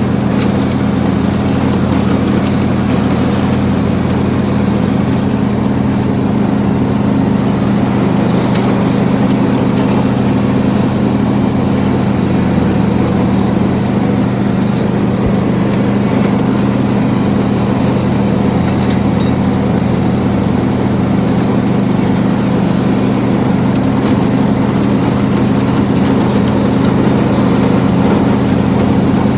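Riding lawn mower engine running steadily under mowing load, a constant low drone that holds the same pitch and level throughout.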